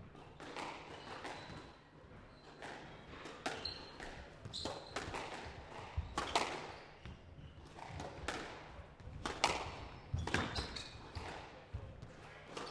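Squash rally: irregular sharp hits of the ball off rackets and the court walls, with footsteps and short squeaks of shoes on the wooden court floor.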